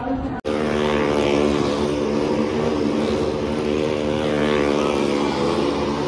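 Motorcycles riding the near-vertical wooden wall of a well of death, their engines held at steady high revs in one continuous drone. The sound starts after a brief break about half a second in.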